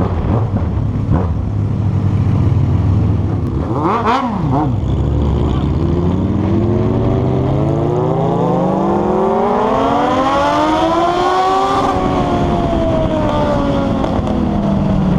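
Inline-four motorcycle engine running steadily, with a quick rev blip about four seconds in, then one long smooth rise in pitch as it accelerates hard, easing back down near the end.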